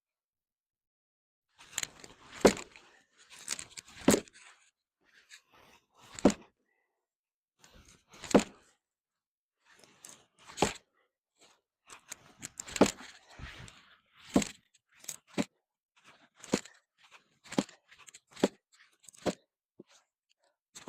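Axe chopping into wood: about a dozen sharp strikes, roughly one every two seconds at first and coming faster toward the end, with a crunching, splintering sound on some blows.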